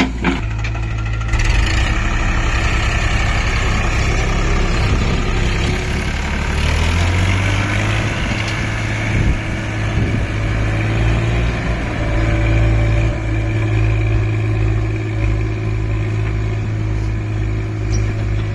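Heavy diesel engine running steadily, its pitch rising a little about seven seconds in.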